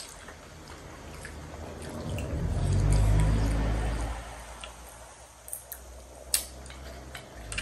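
Wet chewing and mouth smacks of people eating momos (steamed dumplings dipped in sauce). There is a low rumbling swell about two to four seconds in, and a few sharp clicks a little later.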